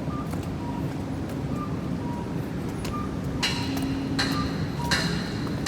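City street ambience with a steady traffic rumble and a few short high beeps. From a little past halfway, a regular sharp clicking starts, a bit more than once a second.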